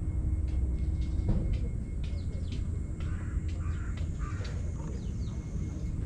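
Outdoor ambience: a low steady rumble, with a few distant bird calls from about two to five seconds in.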